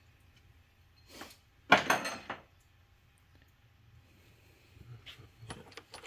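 Metal hand tools and bolts being handled: a soft knock about a second in, a loud sharp clank with a short ring just before two seconds, then a few light clicks near the end.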